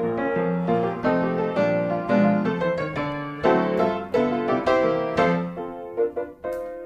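Background piano music: a light tune of notes struck a few times a second, each ringing and fading.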